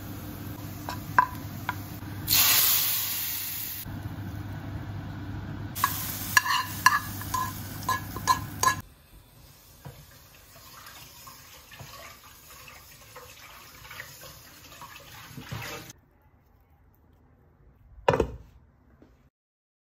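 Onions sizzling in hot oil in a frying pan, with a spoon scraping and clinking against the pan and a loud hiss of sizzling lasting about a second and a half. A quieter stretch follows, and a glass lid clatters onto the pan of dhal near the end.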